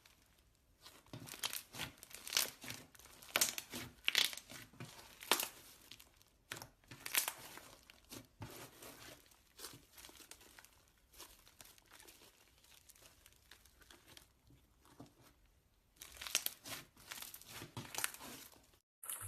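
Slime being squeezed and stretched by hand: irregular crackling and popping in bursts, busiest in the first several seconds and again near the end, with a quieter stretch in between.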